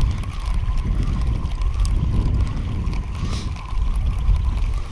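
Wind buffeting the microphone: a loud, uneven low rumble, with a faint, wavering steady tone in the background.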